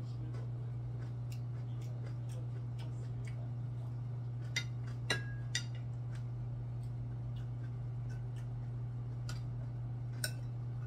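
Chopsticks and a metal spoon clicking against ceramic bowls and plates during a meal: faint small ticks, a few sharp clinks about four to six seconds in and one more near the end. A steady low hum lies under it.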